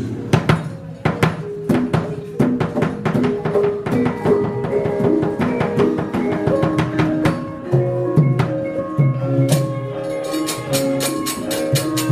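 Javanese gamelan playing a lively percussive passage. Metallophones ring out in steady notes over drum strokes, with many quick, sharp knocks and clacks that are dense at first, from the puppeteer's keprak and dodogan.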